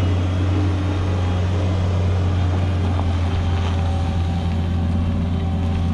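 Engine of farm machinery running at a steady speed, a low even drone that does not change.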